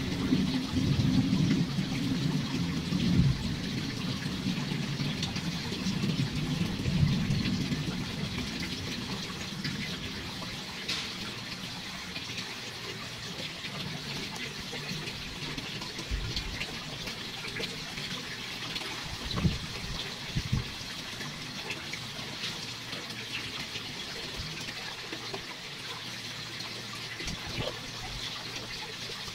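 A chef's knife cutting raw chicken breast on a plastic cutting board, with a few soft knocks of the blade on the board, the loudest about two-thirds of the way in. A steady hiss runs underneath, with a low rumble in the first third.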